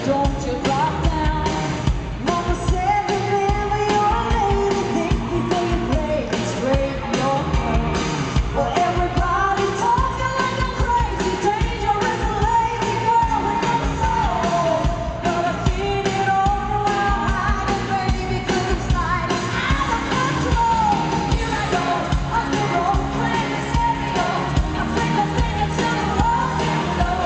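Live pop-rock performance by a band with female group vocals singing over a steady, driving drum beat and amplified instruments.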